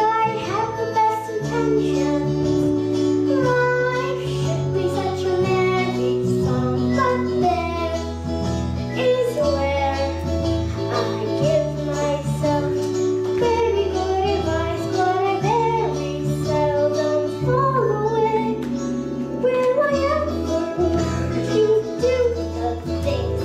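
A young girl singing a song over instrumental accompaniment, with a bass line that changes note about every second.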